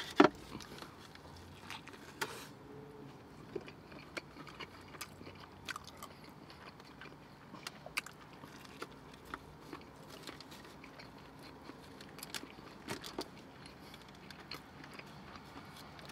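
Eating sounds: bites of a toasted sub sandwich dipped in chili, then chewing, with a scatter of small wet clicks and crunches. One sharp click comes just after the start.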